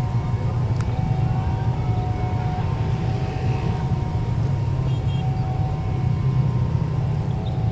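Jet engines of a Lion Air Airbus A330-900neo (Rolls-Royce Trent 7000) running with a steady low rumble and faint thin whining tones above it.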